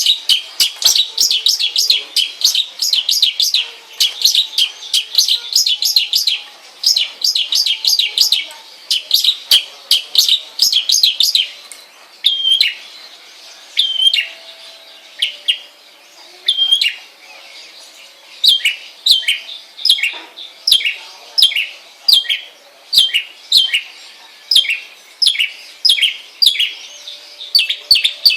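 Long-tailed shrike (cendet) singing: fast runs of sharp, high chirps, then a slower series of short notes that drop in pitch, about one or two a second, with a brief sparse stretch around the middle.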